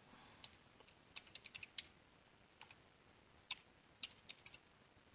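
Faint computer keyboard typing: quick keystrokes in short, irregular runs, entering a line of code.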